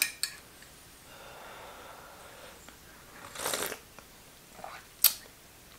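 A person sipping hot tea from a ceramic mug: a short noisy slurp about three and a half seconds in, with small sharp clicks of a metal teaspoon against the mug, one just after the start and one near the end.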